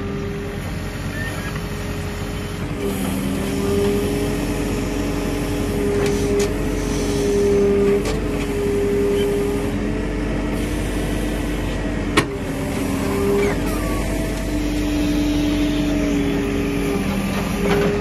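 Backhoe loader running and digging: engine and hydraulics with steady tones that shift in pitch and strength as the boom and bucket move. A single sharp knock about twelve seconds in.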